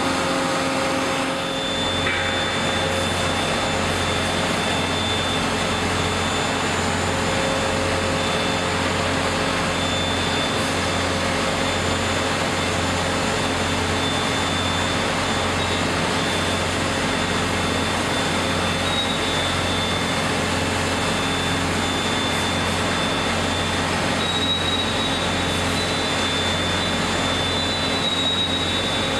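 Hot spring-coiling machine winding a red-hot steel bar around its mandrel: steady industrial machine noise with a thin high whine and a low hum that comes in about two seconds in.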